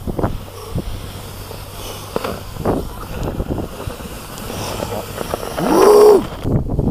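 A snowskate deck scraping and knocking over snow, with several sharp knocks, under wind buffeting the microphone. About six seconds in, a short voice call rises and then falls in pitch.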